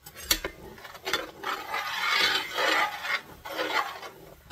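A utensil stirring and scraping across the bottom of a pan of boiling meat juices, in repeated rasping strokes, with a sharp tap just after the start.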